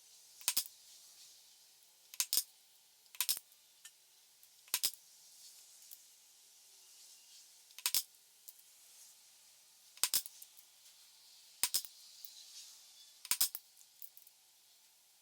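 Light, sharp taps on a Kydex sheath while eyelet hole positions are marked out on it, most of them coming in close pairs a second or two apart.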